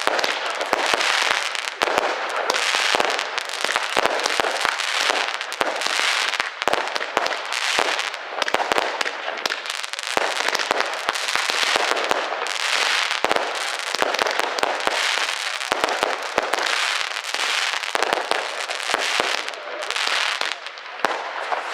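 Fireworks going off: a dense, continuous crackling of rapid pops, swelling and easing every second or two.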